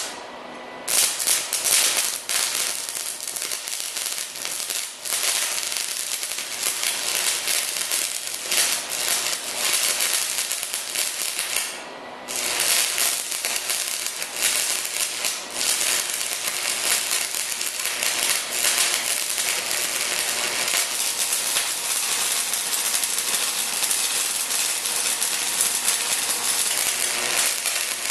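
Shielded metal arc (stick) welding arc crackling and spattering steadily, run on the AC output of a 115-volt MIG 130 flux-core welder on uncleaned, mill-scaled steel plate. The arc catches about a second in, breaks off briefly about twelve seconds in, and is struck again.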